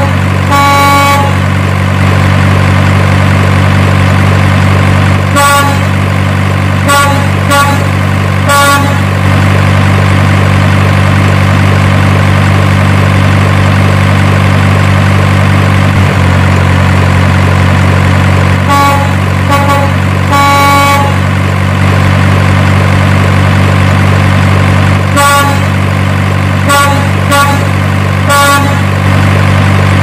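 Truck sound effect: a steady low diesel-truck engine drone with short, pitched truck horn honks coming in groups of three or four, about every six seconds.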